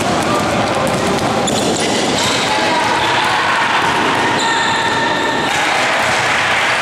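Basketball bouncing on a hardwood gym floor during play, over the steady, echoing din of a game in a large hall.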